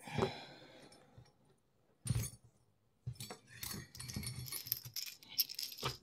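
Small metal lock parts being handled: a knock about two seconds in, then a run of quick metallic clicks and rattles.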